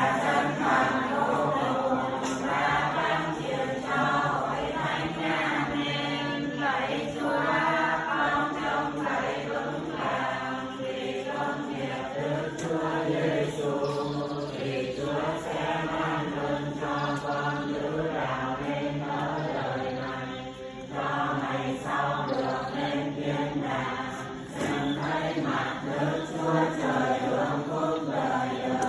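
A group of voices chanting prayers together in unison, in the sung recitation style of Vietnamese Catholic prayer (đọc kinh). The chant is continuous, with a short breath-like dip about two-thirds of the way through.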